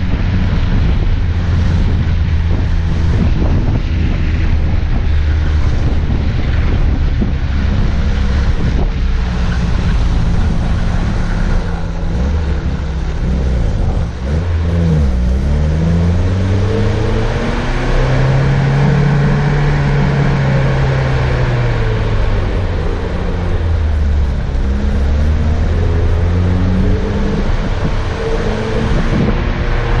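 Off-road 4x4's engine running under way, heard close from a hood-mounted camera; a steady drone whose pitch rises and falls several times through the middle stretch as the driver speeds up and eases off.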